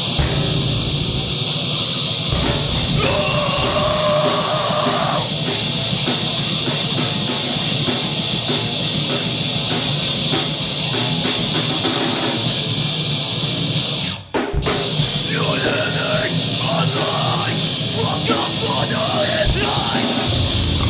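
Live heavy rock band playing an original song: distorted electric guitar, drum kit and sung vocals. The sound cuts out for a split second about two-thirds of the way through, then carries on.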